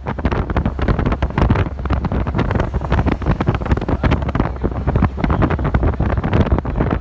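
Wind buffeting a phone's microphone: a loud, irregular low rumble with crackling gusts.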